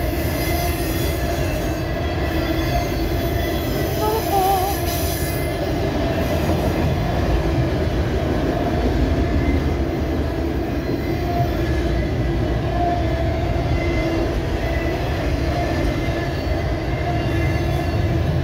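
Autorack freight cars rolling past close by: a steady rumble of steel wheels on rail, with thin, steady squeal tones from the wheels running through it.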